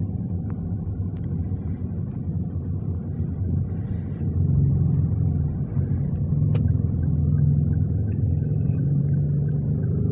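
Steady low rumble of a running car, growing slightly louder about halfway through, with a few faint clicks.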